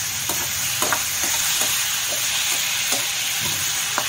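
Onions, tomatoes and peas sizzling steadily in mustard oil in a kadhai, while a slotted metal spatula stirs them with irregular scrapes and taps against the pan.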